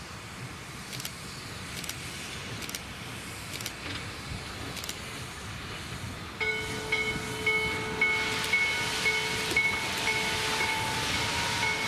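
Steam locomotive working slowly, its exhaust chuffs about one a second. About halfway through, its steam whistle sounds one long blast, a chord of several tones held to the end, while steam hissing from the open cylinder cocks grows louder.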